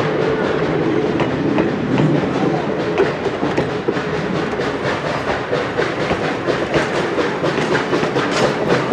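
Steel wheels of passenger coaches and cabooses rolling past close by on the track: a steady rumble with clicking over the rail joints, the clicks coming more often in the second half.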